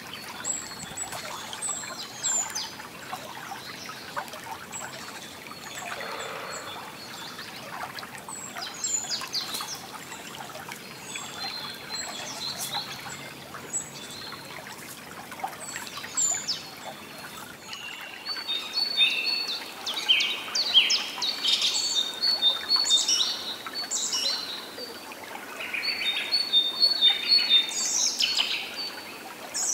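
Several small songbirds chirping and trilling over a steady soft background hiss. The birdsong becomes busier and louder over the last third.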